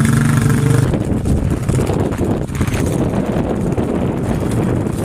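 A vehicle running, with wind buffeting the microphone: a steady low hum in the first second, then rough rumbling noise.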